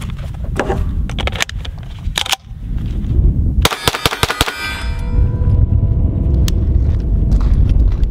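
Sharp metallic clicks of the Smith & Wesson M&P FPC 9mm carbine being handled, then a fast string of 9mm shots about three and a half seconds in. Struck steel targets ring on for a couple of seconds after the shots.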